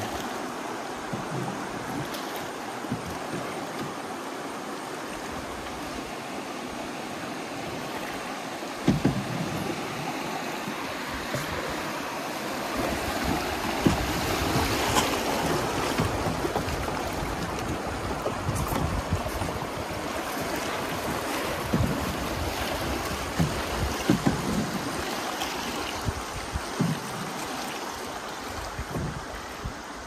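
River water rushing and splashing around a kayak, steady throughout, with a few sharper splashes or knocks here and there.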